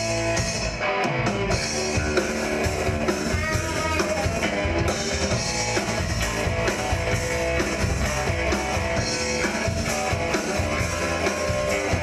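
Rock music: a band playing with a full drum kit and guitars.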